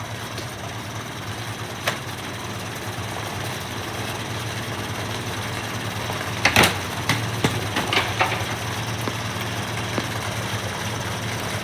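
Front-loading washing machine with its door removed, its drum spinning fast in service mode with a steady hum. Loose objects thrown into the drum knock inside it, with the loudest clatter about six and a half seconds in and smaller knocks after.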